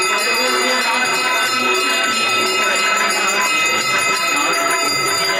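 Metal puja hand bells rung continuously, a dense, steady jangle of overlapping ringing bell tones.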